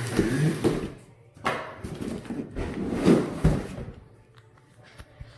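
Cardboard shipping box being handled and opened: rustling and scraping of cardboard and packing, with a low thump about three and a half seconds in, then a few faint clicks.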